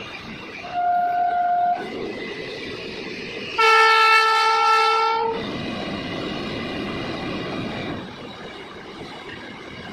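Train horn sounding twice: a short single-note blast about a second in, then a longer, louder blast with a fuller, richer tone around the middle. Underneath runs the steady noise of loaded container wagons rolling past at speed.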